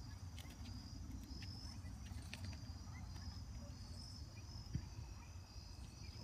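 Insects chirping in repeated short pulses, high-pitched and steady, over a low background rumble. A single dull thump about five seconds in.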